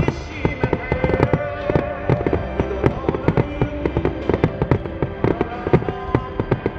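Starmine aerial shells bursting in rapid succession, a dense run of sharp bangs several a second, with music playing behind them.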